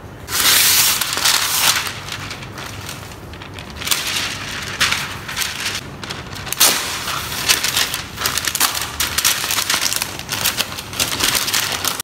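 Baking paper being pulled off its roll and crinkled by hand: a long rustling pull near the start, then a run of crackling and crinkling from about four seconds on.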